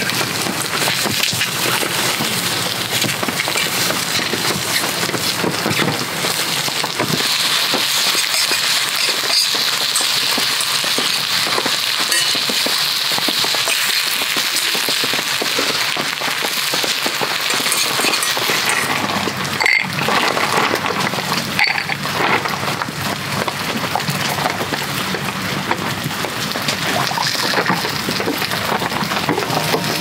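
Raw chicken thighs sizzling in a frying pan over a wood campfire: a dense, steady crackling hiss that grows a little stronger after the first several seconds.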